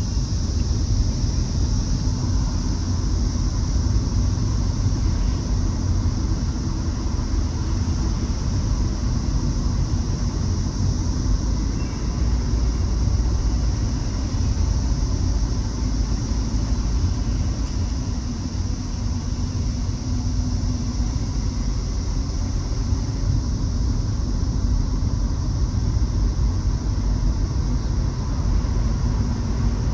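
Car driving along a paved road, heard from inside the cabin: a steady low rumble with tyre hiss.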